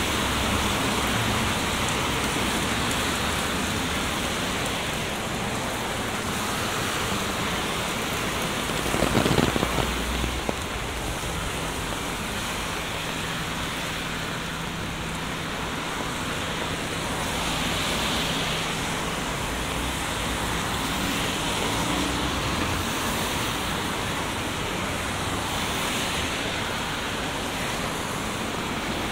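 Heavy rain falling steadily, a dense even hiss, with a brief louder noise about nine seconds in and a faint low hum through the middle.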